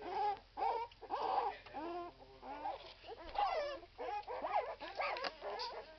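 Several 12-day-old Irish red and white setter puppies whimpering: a quick run of short, high calls that bend up and down in pitch and overlap one another.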